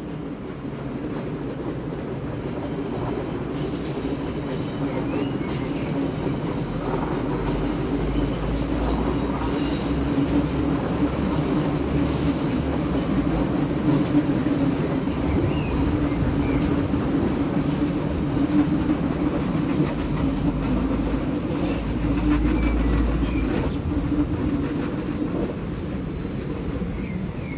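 Red Deutsche Bahn electric multiple-unit train running past close by over the station tracks: a steady rumble of wheels on rail. It grows louder over the first half and eases off near the end, with a few faint high squeals from the wheels.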